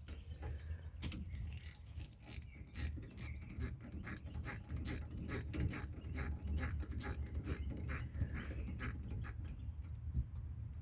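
Hand socket ratchet clicking as it is worked back and forth, about three clicks a second, backing a brake caliper bolt off a truck. The clicking starts about a second in and stops near the end.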